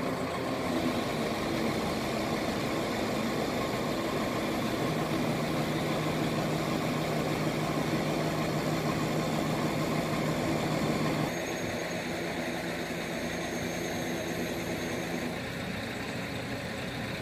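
Engine of a crane truck running steadily while its truck-mounted crane lifts a statue. A steady hum joins about five seconds in, and about eleven seconds in the sound drops a little and changes.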